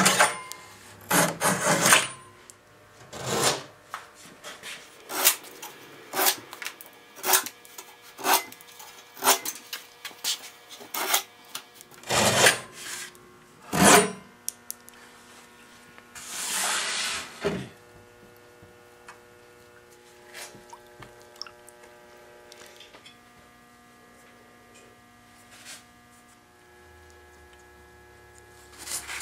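Flexible flush-cut saw trimming protruding square wooden pegs level with the back panel of a wooden chest: a series of short rasping strokes, about one a second, then one longer stroke a little after halfway. After that only a faint steady hum remains.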